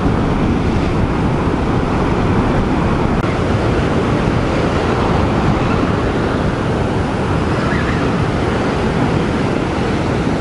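Heavy ocean surf breaking and washing around granite rocks, a steady rush of water with no single standout crash.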